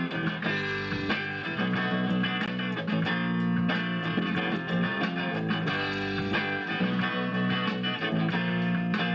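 A rock band playing: electric guitar and bass guitar playing sustained notes and chords, with no break.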